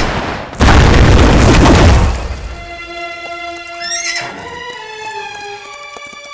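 Film soundtrack: a loud, rough blast of noise lasting about a second and a half, then dramatic score with held string notes, over which a horse whinnies about four seconds in.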